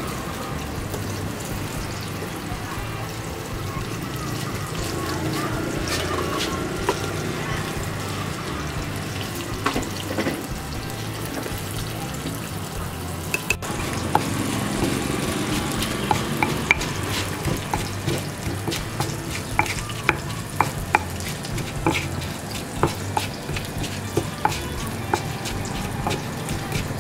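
Oil sizzling steadily as chicken wings fry, with a wooden pestle pounding and knocking in a stone mortar. The sharp knocks come often in the second half.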